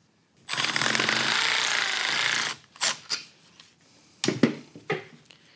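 Milwaukee cordless ratchet running steadily for about two seconds, driving down a bolt-on valve spring compressor on a cylinder head, then a few short clicks and knocks of metal tools being handled.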